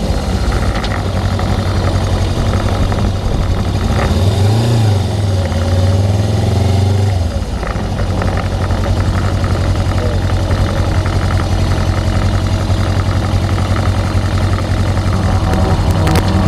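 Suzuki GS500's air-cooled parallel-twin engine running steadily at a low note, its pitch rising for a few seconds from about 4 seconds in and then settling back.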